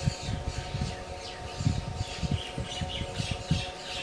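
Irregular low knocks and rubbing of hands handling an LED TV's panel cable as its connector is pushed into the board. Birds chirp faintly behind, over a faint steady hum.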